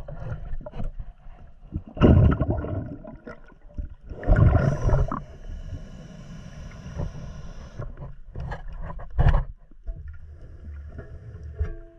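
Underwater sound picked up by a camera with a diver: a steady muffled rumble, broken by loud bursts of bubbling about 2 seconds in, again around 4 to 5 seconds, and once more near 9 seconds.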